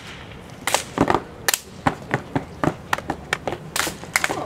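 Stepping: the performers' hand claps, body slaps and foot stomps on pavement in a fast, syncopated rhythm of sharp strikes, about three a second, some falling in quick pairs.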